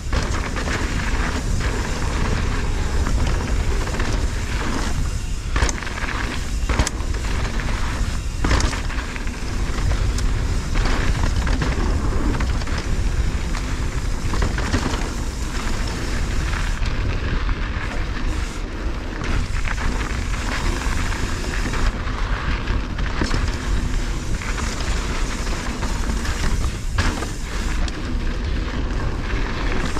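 Wind buffeting an action camera's microphone on a mountain bike rolling downhill, over the steady rumble of knobby tyres on dry dirt and gravel. A few sharper knocks come from the bike hitting bumps.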